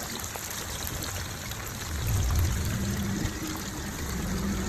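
Chicken pieces deep-frying in hot oil: a steady sizzle with fine crackling. A low rumble swells about two seconds in.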